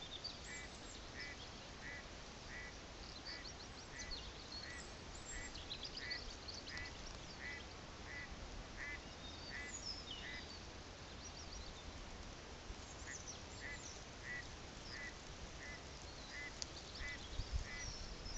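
A bird calling a long, even series of short notes, about three a second, pausing for a few seconds midway. Other birds chirp faintly and higher over it, with light wind rumble.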